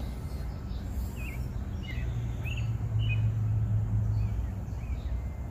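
Small birds chirping in short, repeated calls about every half second, over a low steady hum that swells for a couple of seconds in the middle.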